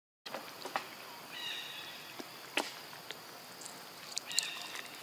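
Short high chirping calls, twice: once about a second in and again near the end. A few soft clicks sit over a faint outdoor background.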